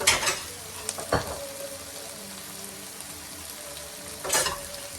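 Chopped peppers and onion sizzling steadily in a little oil in a non-stick frying pan. Three short sharp knocks of utensil against pan cut in: right at the start, about a second in, and near the end.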